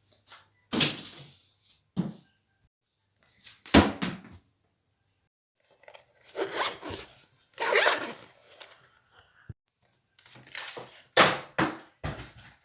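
A series of about eight short, separate handling noises (knocks, clatters and rustles) with dead silence between them, like a run of separate sound effects.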